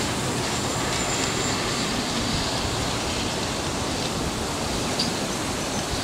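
John Deere 6250R tractor working under load, pulling a six-furrow Lemken reversible plough through the soil: a steady, even drone.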